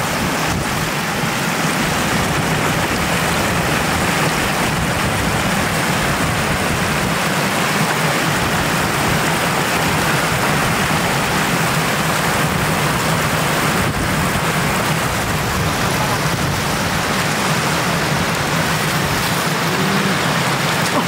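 Floodwater rushing steadily over and off the edge of a road, a loud continuous rush of shallow running water.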